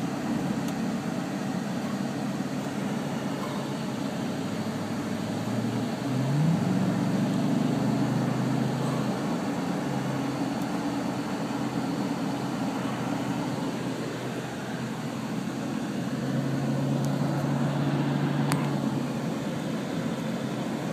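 Engine and road noise heard from inside a moving car at highway speed, steady with a low engine hum; the engine note rises about six seconds in and swells again later.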